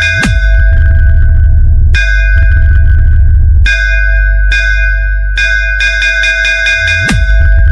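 Loud DJ sound-check competition track: runs of rapid, bell-like metallic synth hits over heavy bass, with a short bass sweep and click about a quarter second in and again near the end.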